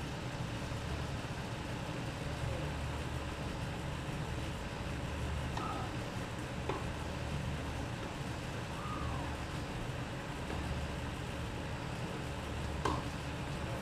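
Tennis ball being struck on an outdoor hard court, heard from a distance as a few sharp knocks over a steady low rumble. The loudest knock comes near the end.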